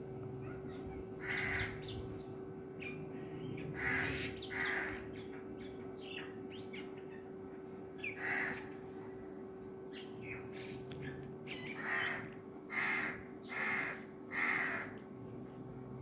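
A crow cawing about eight times: single harsh caws and pairs, then a run of four near the end, over a steady hum.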